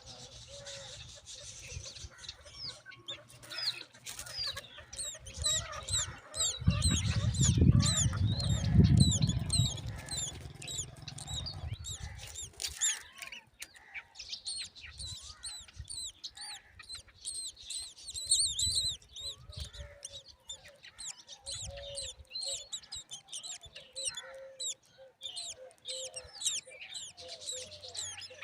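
Myna chicks chirping in quick, constant high-pitched calls. A loud low rumble, like handling or rustling noise, runs under them from about a quarter of the way in to near the middle.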